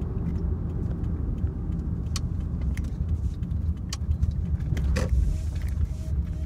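Road noise heard inside a car cabin as it drives and turns, a steady low rumble, with a few light clicks or rattles scattered through it.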